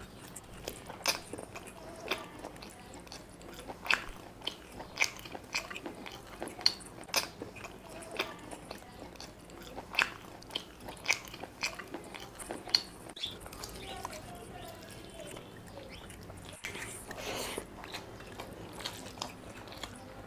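Wet chewing and lip-smacking of a person eating chicken leg curry and biryani by hand, with sharp irregular mouth clicks a few times a second.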